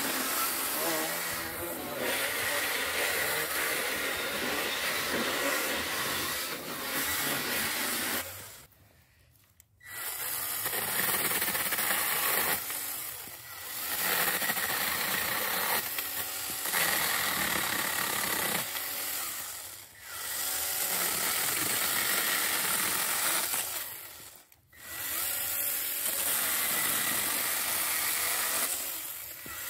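Worx WG324E 20 V cordless pruning chainsaw running and cutting through wood, in runs a few seconds long that stop and start again about six times.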